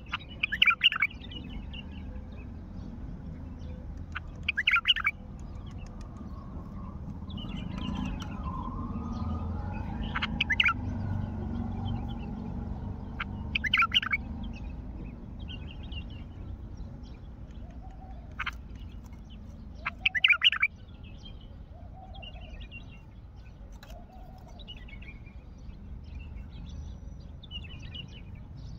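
A bulbul singing in short, bright, warbled phrases, one every few seconds, several of them loud and the rest fainter. A low background rumble swells and fades in the middle.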